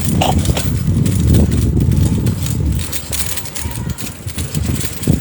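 Low, uneven rumble of wind and road noise from moving along a street, with a few short knocks.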